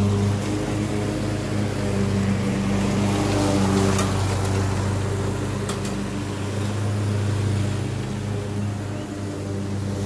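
Craftsman Z6000 zero-turn mower's engine running steadily while mowing, loudest about four seconds in as it passes close, then moving off. A couple of brief sharp ticks come about four and six seconds in.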